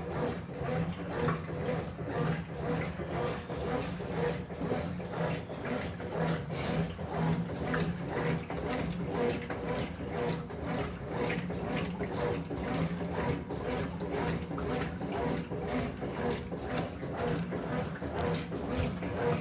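Electrolux LF75 top-load washing machine agitating a water-filled load, probably on its turbo setting: a steady motor hum under an even rhythm of swishing and sloshing as the agitator swings back and forth.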